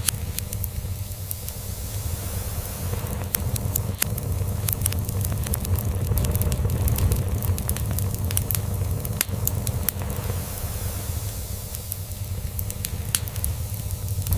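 A wood log fire crackling, with frequent sharp pops, over a cat's steady low purring.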